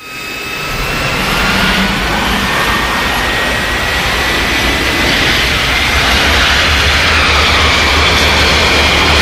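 Jet aircraft engine running up: a high whine that slowly rises in pitch over a steady rush of noise and a low rumble, swelling in the first second and then holding loud.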